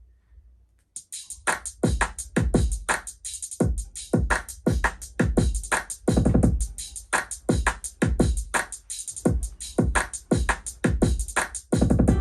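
Zealot boombox Bluetooth speaker playing an electronic drum-machine beat at half volume on normal EQ: deep kick drums that drop in pitch, with crisp hi-hats on top, starting about a second in.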